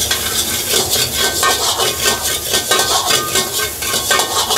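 A steel ladle scraping and clanking rapidly against a carbon-steel wok as beaten egg is stir-fried in hot oil, with a sizzle underneath and a faint metallic ring from the wok.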